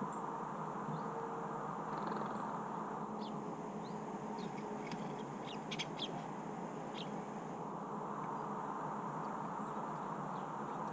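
Steady trickling of water, with a scatter of short, high bird chirps around the middle.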